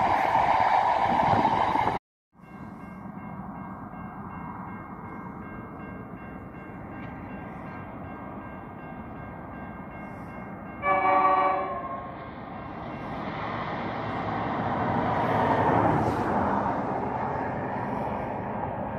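A container freight train rumbling past, cut off abruptly about two seconds in. Then, over faint steady high tones, a locomotive horn sounds one blast of about a second, and the rumble of an approaching train builds, loudest a few seconds later.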